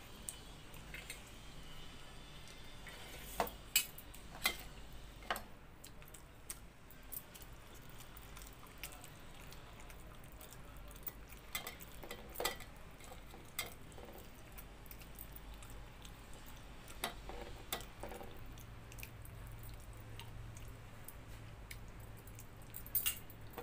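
Eating pakhala by hand: scattered light clicks and taps as fingers scoop water rice and fry against a steel bowl and steel plates, with soft chewing between them, over a faint low hum.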